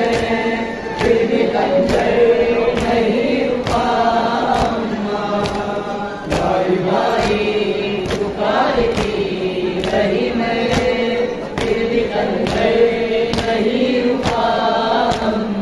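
Group of male mourners chanting a noha in unison, with rhythmic matam: hands striking chests in unison about one and a half times a second.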